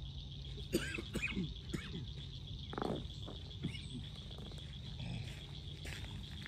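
Pond-side chorus of frogs and insects: a steady, high, pulsing trill, with a few short curving calls about a second in and another near three seconds in.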